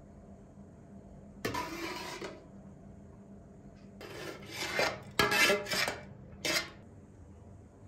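A long metal skimmer scrapes and knocks against an aluminium colander and a steel pot as drained, parboiled rice is scooped and dropped into the pot for steaming. There are four strokes: one about a second and a half in, then three in quicker succession from about four seconds on.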